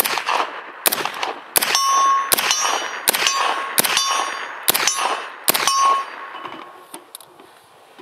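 Suppressed MP5 firing about eight spaced single shots, under a second apart, each crack followed by a clear metallic ring that fades out after the last shot.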